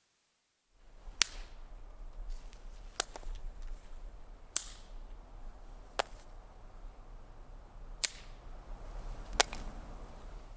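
A series of twigs being snapped one at a time: six sharp, dry cracks one to two seconds apart, with faint crackling and rustling between them. The snaps begin about a second in.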